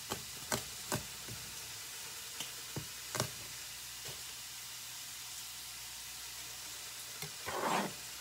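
Chef's knife chopping green onions on a plastic cutting board, a few sharp taps in the first seconds. Pork sizzles steadily in a hot pan throughout. Near the end the blade scrapes across the board, sweeping the chopped onions aside.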